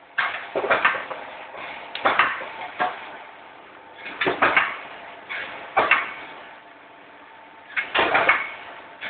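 Candy-making machine for caramel and lollipops clattering: irregular bursts of metal knocks and clicks every second or two over a faint steady hum.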